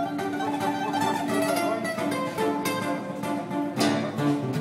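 Amplified nylon-string classical guitar played fingerstyle: a continuous run of plucked notes over a repeating lower note, with a sharper, louder attack a little before the end.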